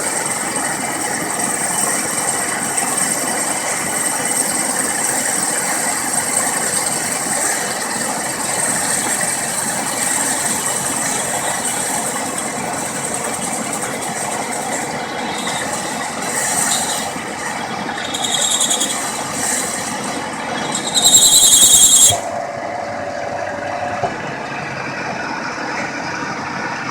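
Machinery running steadily with a thin high whine, squealing briefly several times; the high squeal cuts off suddenly about two thirds of the way through.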